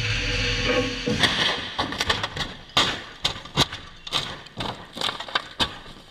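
Volvo XC60 in a rollover crash test: a steady rush for the first second, then a string of about a dozen irregular heavy thuds and crashes as the body strikes the tarmac again and again while it tumbles, growing fainter toward the end.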